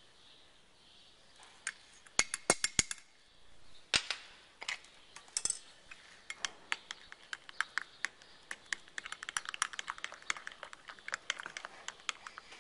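Metal spoon clinking against a glass measuring cup while stirring warm liquid soft-plastic bait mix. A quick cluster of sharp taps comes about two seconds in, then a long run of rapid, irregular clinks.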